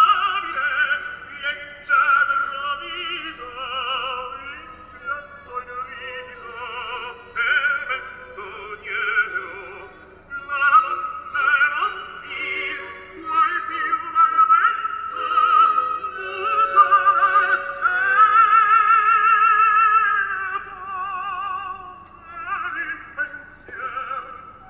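Recorded operatic singing with a strong, wide vibrato, played back from a CD through the installation's built-in speakers; thin, with little bass.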